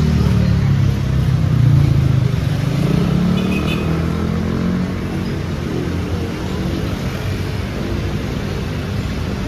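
Street traffic: motor vehicle engines running and passing close by, with one engine swelling up loudest about two seconds in, over a steady hum of road noise.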